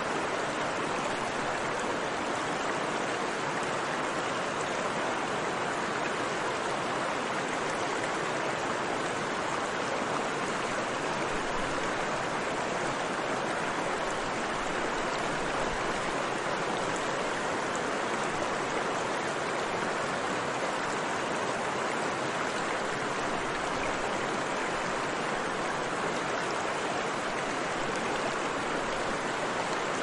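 Mountain river flowing: a steady, even rush of water that does not change.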